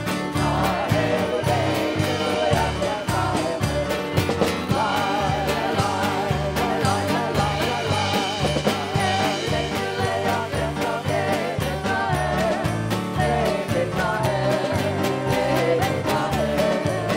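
Upbeat worship music with voices singing over a steady beat.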